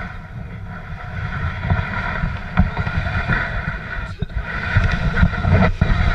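Wind buffeting the microphone of a camera mounted low on a toboggan, over the low rumble of the sled moving across snow, with a few sharp knocks.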